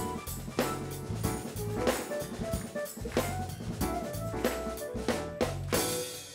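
A studio house band playing an upbeat jazzy groove: a drum kit beat with bass drum and cymbals under a bass line and short melodic notes. The music stops near the end.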